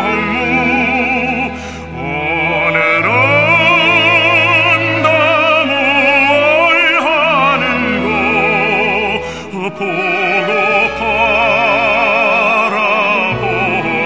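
Classical art-song recording with orchestral accompaniment: a melody with heavy vibrato over sustained low notes, in operatic style.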